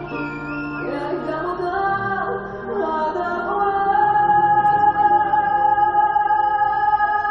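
Waltz music with a female voice singing; a long held note swells from about halfway in.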